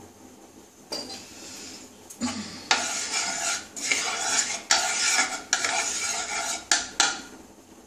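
Wooden spatula scraping round the bottom of a non-stick kadai, spreading a little oil as it heats, in a run of about six strokes over four or five seconds. A single knock comes about a second in, before the stirring starts.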